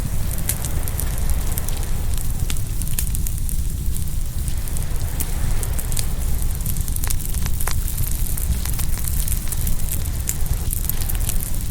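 Open wood fire crackling, with many sharp pops at irregular moments over a steady hiss. Underneath runs a steady low rumble of waves breaking on the shore.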